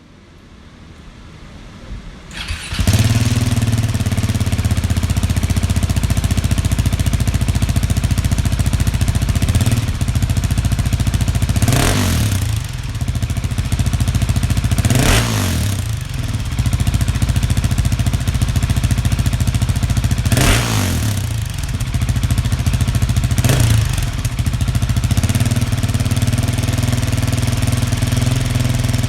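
Husqvarna 701's single-cylinder four-stroke engine, breathing through an Arrow aftermarket exhaust, catches about three seconds in and settles to a steady idle. It is blipped four times, each a quick rise and fall in revs.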